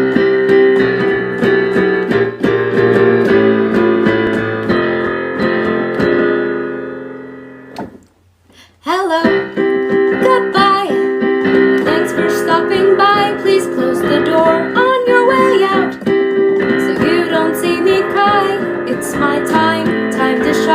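Song intro music: sustained tones that fade away about eight seconds in, a brief near-silent break, then the music comes back in.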